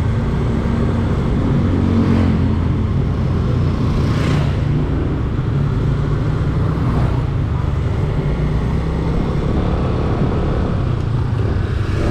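A motor vehicle's engine running steadily, with other traffic passing by now and then, about two seconds, four seconds and seven seconds in.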